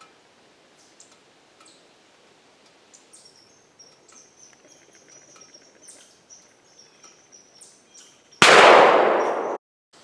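A single loud gunshot fired at a grouse about eight seconds in, sudden and then dying away for about a second before cutting off. Before it, faint bird chirps over quiet woodland background.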